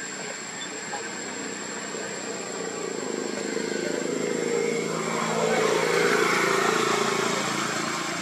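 A passing engine, growing louder to a peak about six seconds in and then fading.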